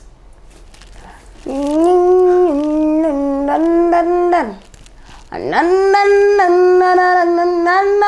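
A person's voice singing two long wordless held notes, each about three seconds, with the pitch stepping slightly up and down within each note.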